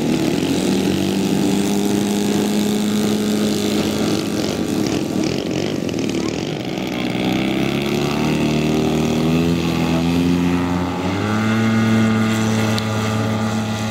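Engines and propellers of large-scale radio-controlled model aircraft running on their take-off runs. The note holds steady at first, climbs in pitch a few seconds later, and a second, deeper engine comes in strongly about eleven seconds in.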